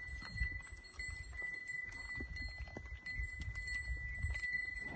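A herd of cattle walking past on dry ground: irregular hoof knocks and shuffling over a low rumble. A thin, steady high tone sounds throughout.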